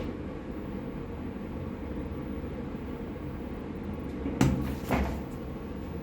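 Two sharp knocks about half a second apart near the end, over a steady low hum.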